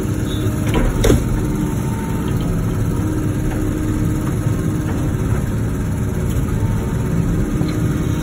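Wacker Neuson ET145 excavator's diesel engine running steadily while working, with a single sharp knock a little after a second in.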